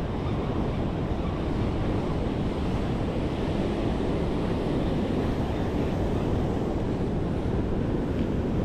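Ocean surf breaking and washing over a rock ledge, a steady rush of white water, with wind buffeting the microphone.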